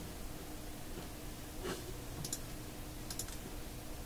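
Computer mouse button clicks, a few quick paired clicks between about two and three and a half seconds in, over a steady low hum.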